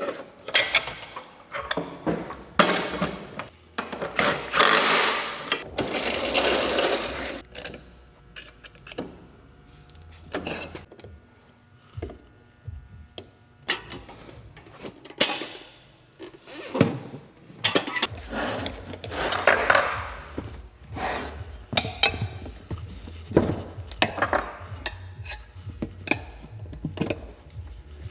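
Hand tools and metal parts clinking, knocking and scraping while a snowblower is worked on, with a few longer rasping, scraping stretches.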